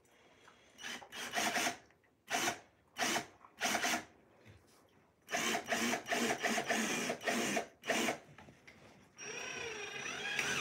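Small cordless drill pre-drilling pilot holes in a bed-frame panel, run in several short bursts and then one longer run of about two and a half seconds. A softer, wavering whine follows near the end.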